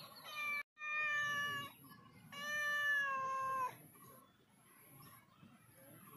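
Domestic cat meowing: a run of loud meows in the first four seconds, the last and longest starting a little after two seconds in and falling in pitch as it ends.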